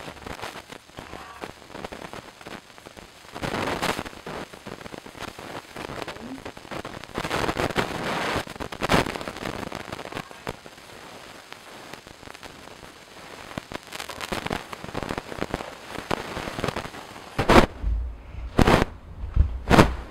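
A metal spoon scraping and clinking against the inside of a pot of hot jam while it is stirred and skimmed, an irregular clatter with sharp clicks. Near the end come several loud, deep thumps of the camera being handled.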